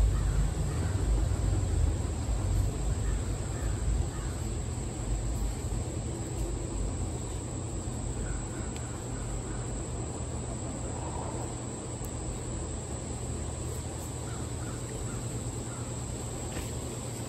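Outdoor ambience: wind rumbling on the microphone, strongest in the first few seconds, over a steady high-pitched insect drone, with a few faint bird calls.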